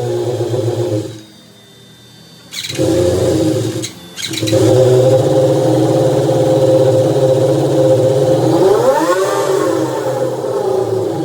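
Yamaha R1 inline-four motorcycle engine running, with a short rev about three quarters of the way through that rises and falls in pitch. The sound cuts out abruptly for about a second early on, then resumes.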